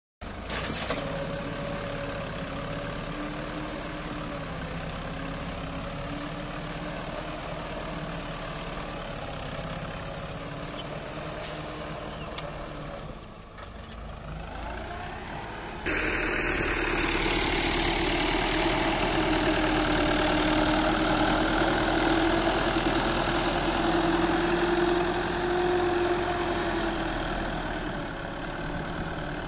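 Fiat tractor's diesel engine running as it works its blade through loose earth, the engine note rising and falling under load. About halfway in the sound jumps suddenly to a louder, closer engine, which eases off near the end.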